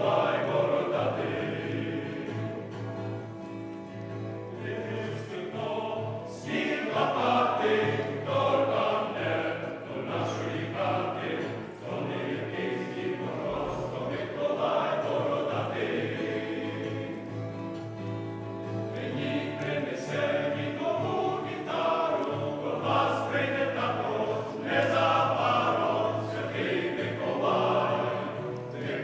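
Men's choir singing a Ukrainian Christmas carol in parts, with acoustic guitar accompaniment.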